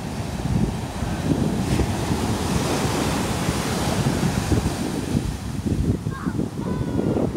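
Atlantic Ocean surf breaking and washing up the beach, its hiss swelling in the middle, with wind buffeting the microphone.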